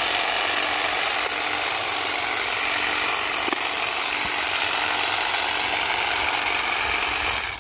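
Saker cordless grass shear running with its blades cutting grass, a steady buzz that cuts off suddenly near the end.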